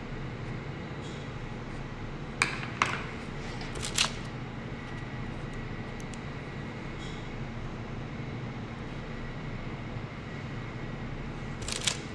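Steady low machine hum in a chocolate kitchen. Over it come a few sharp metal clicks of chocolate dipping forks against the steel bowl and trays: two about two and a half seconds in, one at about four seconds, and one near the end.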